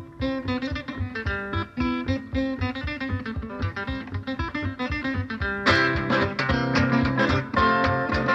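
Music: fast plucked acoustic guitar in a flamenco-like style, growing fuller about five and a half seconds in.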